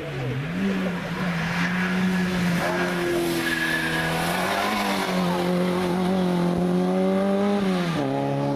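Small hatchback race car's engine pulling hard at high revs through a hairpin on a hillclimb, its note holding steady with two brief dips and recoveries. The note drops near the end, and there is a short tyre squeal a few seconds in.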